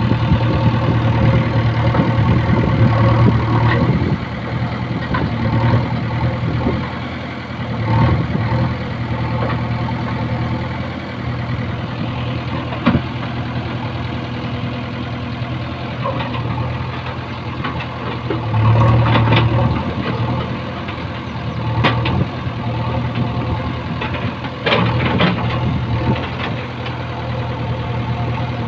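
JCB backhoe loader's diesel engine running steadily while its backhoe digs, swelling under load at the start and again a little past halfway. Short scrapes and clanks of the bucket against earth and rocks come now and then, several of them near the end.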